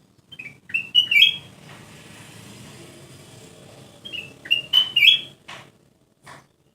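Kutilang emas bulbul chattering: two short runs of quick, bright, warbling notes about three seconds apart, with a couple of soft clicks near the end.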